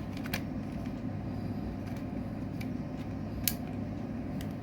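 A few short plastic clicks from the wireless mini keyboard being handled, the loudest about three and a half seconds in, over a steady low background hum.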